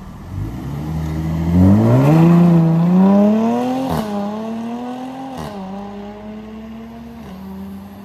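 Jaguar F-Type coupe accelerating hard away from a standstill, engine revs climbing steeply, then two quick upshifts about four and five and a half seconds in, each marked by a short sharp crack, after which it settles to a steady pitch.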